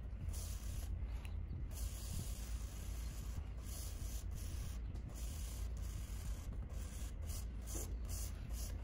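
Motul Chain Lube Off Road aerosol hissing onto the inside of a motorcycle drive chain in a run of sprays with brief breaks, while the chain is turned slowly past the nozzle with a steady rubbing.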